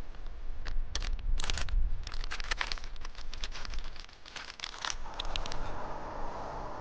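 A foil-lined sachet being torn open by hand, a few seconds of crackling crinkles and rips. Near the end the crackling stops and a steady hiss takes over.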